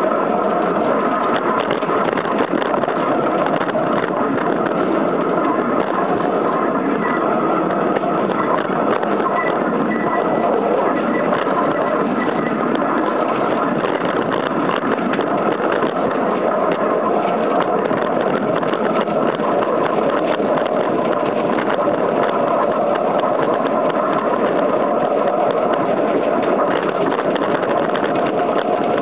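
Small petrol engine of a model Sik locomotor running steadily as the locomotor drives along its track.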